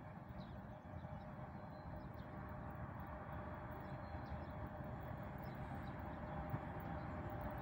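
Distant 3ES5K 'Ermak' electric locomotive and freight train approaching: a low rumble with a faint steady hum, slowly growing louder.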